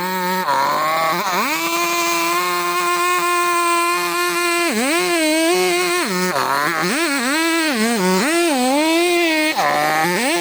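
Two-stroke chainsaw running at high revs, then from about halfway through its pitch repeatedly drops and recovers, about five times, as the chain bites into the wood and bogs under load.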